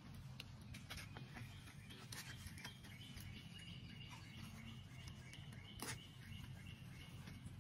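Faint birds chirping in the background, with a run of thin high repeated notes from about three seconds in. Scattered soft clicks and rustles, one sharper click near the six-second mark.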